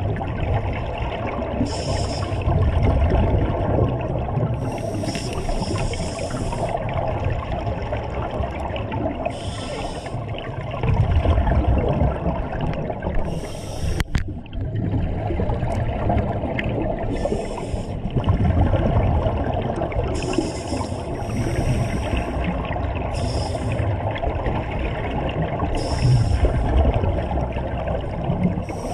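Scuba divers breathing through regulators underwater: a steady rumble of bubbling with a hiss and a burst of exhaust bubbles every few seconds. A single sharp click about halfway through.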